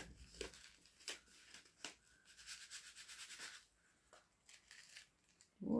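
Faint rustling and a few soft clicks and taps as small herb sachets and paper instructions are handled.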